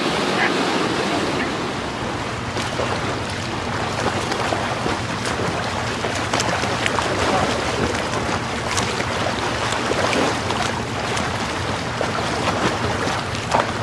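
Rushing water and wind buffeting the microphone over a steady low engine hum.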